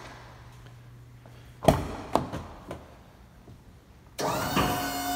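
A single sharp thump, then a few lighter knocks. Near the end, the International CXT's air horns start sounding: a loud, steady chord of several tones that bends up briefly as it starts.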